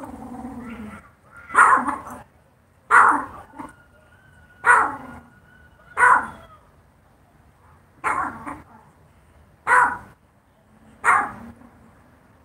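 A dog barking in single barks, about seven of them, one every second and a half or so.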